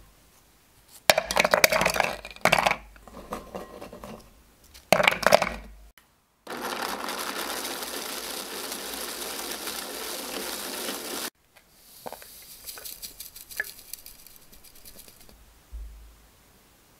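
Loud clattering as Oreo cookies are dropped into the plastic bowl of an electric mini food chopper. The chopper then runs steadily for about five seconds, grinding the cookies to fine crumbs, and stops abruptly. Lighter clicks and rattles follow.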